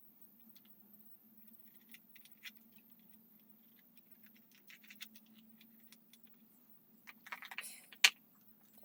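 Small hard parts or tools being handled: scattered light clicks and rattles, then a louder clatter ending in one sharp click about eight seconds in, over a faint steady hum.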